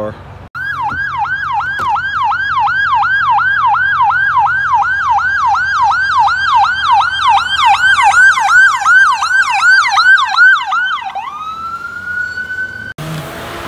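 Ambulance siren in yelp mode: fast up-and-down sweeps, about three a second, growing louder as the ambulance nears and passes close. Near the end it changes to a single slower rising wail, which cuts off abruptly.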